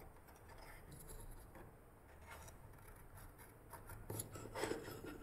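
Faint rubbing and light taps as a steel ruler is handled against a small wooden piece, then a pencil scratching a short mark on the wood about four seconds in.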